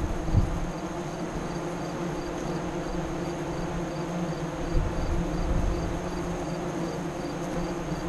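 Honey bees at a hive entrance buzzing: a steady hum of many wings, with a couple of brief low bumps, about half a second in and near five seconds.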